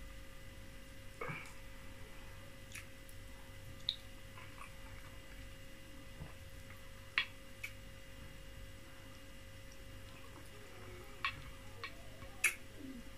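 Eating sounds: about seven short, sharp mouth clicks and lip smacks spread through, while chewing fufu and soup with closed lips, over a faint steady hum.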